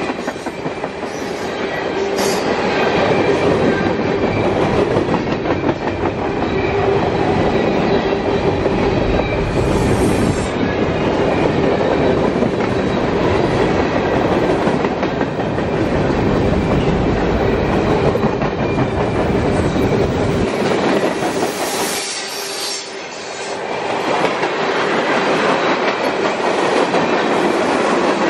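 Freight train cars rolling past on the track, wheels clattering steadily, with a steady tone running through the noise. The sound dips briefly about three-quarters of the way through, then picks up again.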